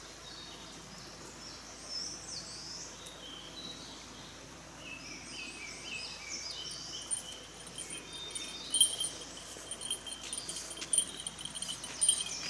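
Forest birds singing, then from about seven seconds in a small bell jingling in time with a person's walking steps, getting louder as it comes closer.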